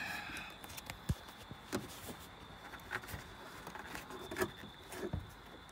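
Faint handling noise: a few scattered light taps and short rubs as a hand moves over the tailgate's plastic trim.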